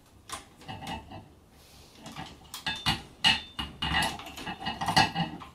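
Electrical wires being handled in a metal junction box: irregular clicks, scrapes and rustles, sparse at first and busier in the second half.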